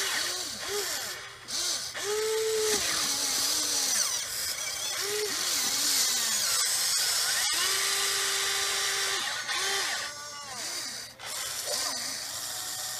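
Huina 580 RC excavator's electric motors whining as the arm and bucket dig. The whine rises and falls with each short movement, and holds steady for about a second twice.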